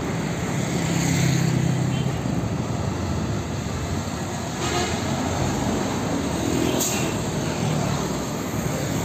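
Road traffic noise as an Isuzu car-carrier truck loaded with cars drives past close by, its engine humming. Motorcycles are passing too.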